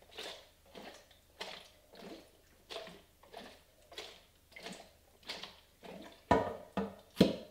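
Wash water sloshing inside a Paterson film developing tank as it is inverted over and over, a short swish about one and a half times a second: the first wash after fixing, clearing the fixer from the film. Near the end come a few sharp knocks.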